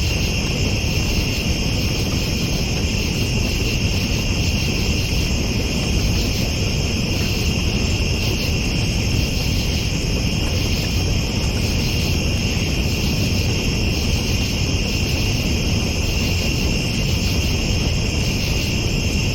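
Night insects such as crickets trilling in a steady high-pitched chorus, over a constant low rumbling noise.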